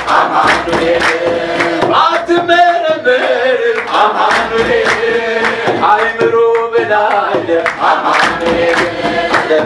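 Ethiopian Orthodox zimare hymn: a man sings into a microphone with the congregation singing along, their voices wavering on held notes, over steady hand clapping and kebero drum beats.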